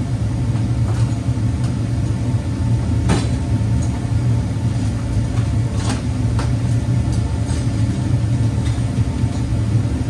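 Steady low mechanical hum with a few sharp metallic clicks of hand tools on fasteners, a loud one about three seconds in and another about six seconds in, while two fasteners are being tightened down.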